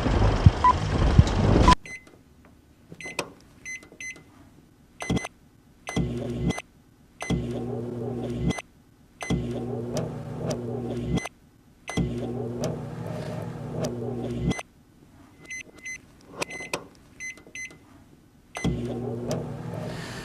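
A loud burst of noise for the first couple of seconds. Then a microwave oven's running hum, chopped into stuttering fragments of one to two seconds, with abrupt cuts, short silences and clicks between them.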